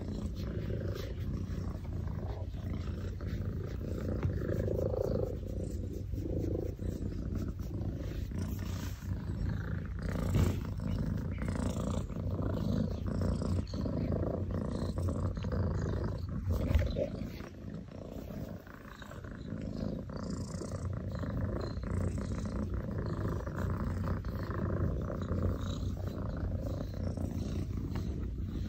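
A domestic cat purring loudly and steadily while being petted, a close, rumbling purr that briefly fades a little past the middle before picking up again.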